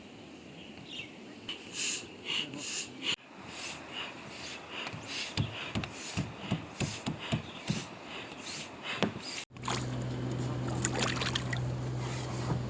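Water splashing around a river raft in irregular bursts. After a sudden cut about three-quarters of the way in, a steady low hum takes over.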